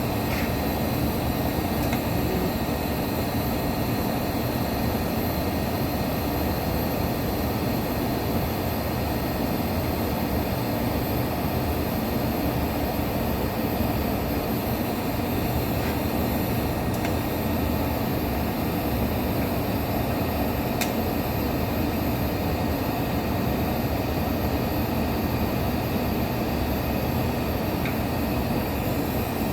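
Steady, unbroken mechanical rushing noise, even in level throughout.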